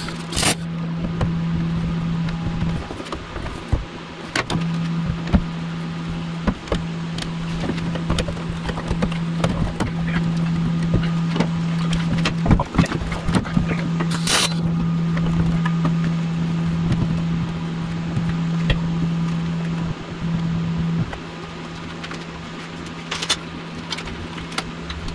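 Welder tacking a sheet-metal firewall panel: crackling welding arcs over a steady hum, thinning out near the end, with three short, sharp, loud bursts.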